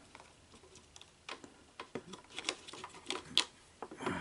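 Small plastic gears of a Sony SL-HF400 Betamax cassette-housing loading mechanism, clicking and ticking as they are worked by hand: a string of irregular light clicks, the loudest about three and a half seconds in. The worm gear is slipping out of its socket because a chunk of the plastic that holds it has broken off.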